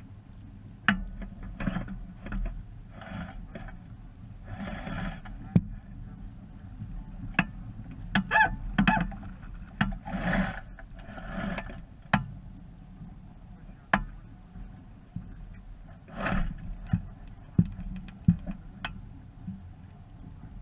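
Small sailboat under way: water slapping and splashing against the hull in irregular bursts, with sharp knocks from the boat and a low wind rumble on the camera's microphone.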